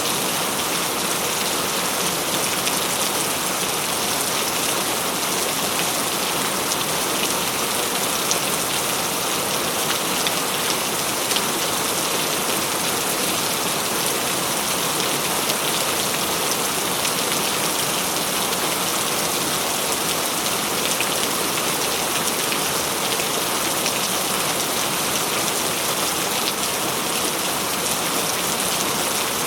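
Steady rain falling: a dense, even hiss of rain with many fine drop ticks through it, and no thunder.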